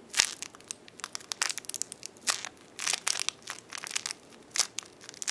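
Clear plastic packaging bag crinkling in the fingers as the small squishy inside is squeezed and turned, a run of irregular crackles.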